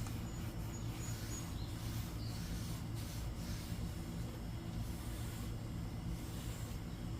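Faint rubbing strokes of a foam applicator pad wiping trim coating onto a plastic wiper cowl, over a steady low background rumble.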